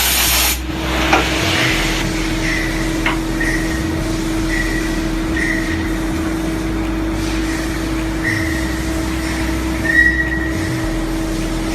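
CNC lathe running with a steady drone and a constant hum-tone, with short high squeaks coming about once a second; a hissing spray cuts off just after the start.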